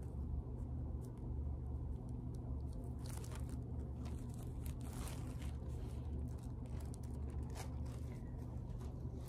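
Plastic wrap crinkling and rustling in short, scattered bursts as it is handled and pressed against the face, over a steady low hum.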